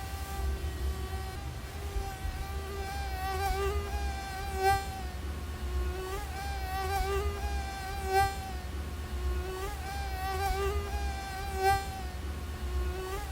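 Mosquito whine: a high, thin buzz that wavers slightly in pitch and swells louder about every three and a half seconds, over a steady low hum.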